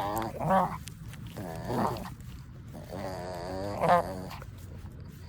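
Pug puppy growling in play, a string of wavering grumbles with three louder, higher-pitched cries about half a second, two seconds and four seconds in.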